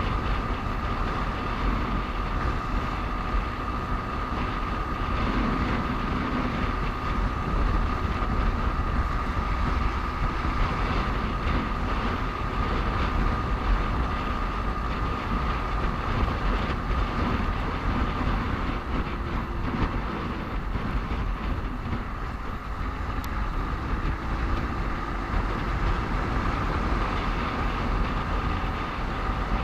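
Steady road and engine noise from a motorcycle riding along a highway, with heavy wind rumble on the microphone and a faint steady whine.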